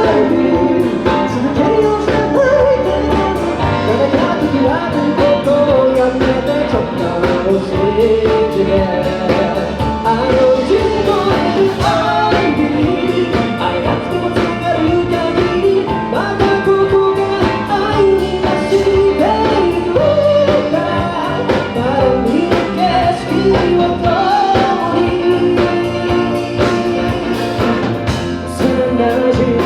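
A rock band playing a song live: a singer over the band, with a steady drum beat.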